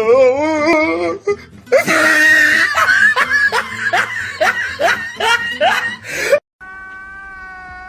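Meme troll sound effects: a wobbly, warbling voice, then a fast run of rising laughs about three a second that cuts off suddenly, followed by a steady high-pitched tone held to the end.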